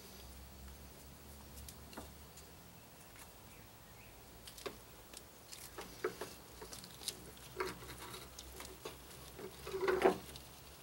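Woven fiberglass cloth being handled and dabbed with a brush against a plywood bulkhead: scattered light taps and rustles that grow busier after about four seconds, with the loudest scuffing burst near the end.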